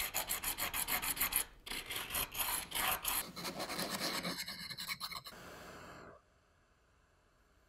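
Quarter-inch cast acrylic being hand-sanded on sandpaper, with rapid back-and-forth rasping strokes. Near the end comes a short steady hiss from a handheld torch flaming the acrylic edges, then the sound cuts off abruptly.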